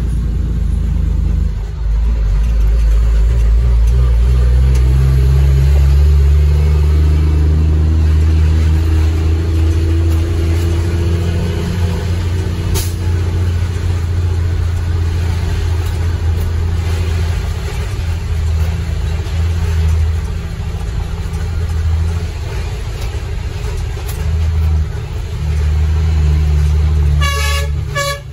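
Heavy truck's Cummins ISM diesel engine running steadily with a deep rumble, its pitch rising and falling a little as it pulls. A few short horn toots near the end.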